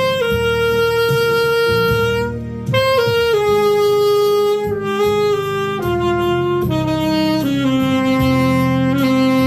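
Alto saxophone playing a slow melody of long held notes that steps gradually downward, with a short gap about two and a half seconds in, over a backing accompaniment with a low bass line.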